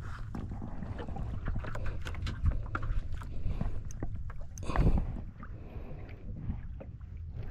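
Wind and water lapping against a wooden outrigger boat, with irregular clicks and knocks from a spinning reel and jigging rod being cranked against a hooked fish; one louder knock about five seconds in.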